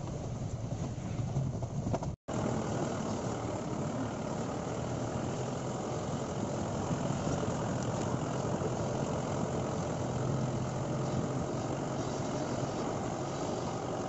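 A four-wheel-drive vehicle's engine running steadily as it drives slowly along a rough, stony dirt track, with its tyres rolling over loose stones. The sound cuts out for an instant about two seconds in, then carries on the same.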